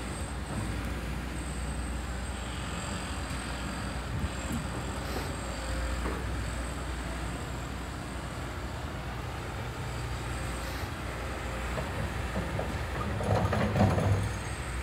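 Kobelco excavator's diesel engine running steadily with a low rumble. Near the end comes a short, louder stretch of rattling and knocking.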